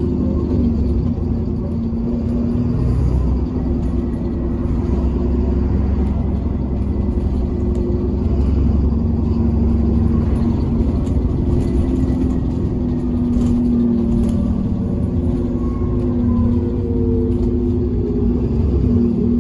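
Interior sound of an ADL Enviro 400 double-decker bus on the move: its diesel engine and ZF automatic gearbox running as a steady low rumble under the floor, with a whine that falls in pitch near the end.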